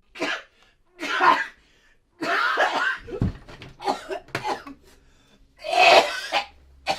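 A person in a coughing fit: a run of harsh coughs in separate bursts, the loudest about six seconds in.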